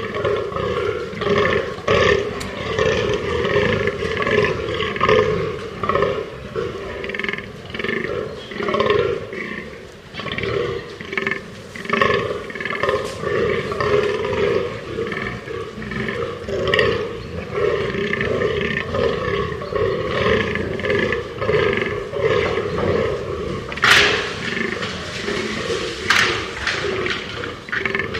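Fallow deer buck groaning in the rut, a call repeated about once a second. Two sharp clicks sound near the end.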